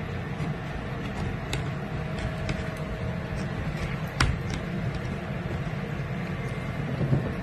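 Steady low rumbling noise with a few faint clicks, the sharpest about four seconds in.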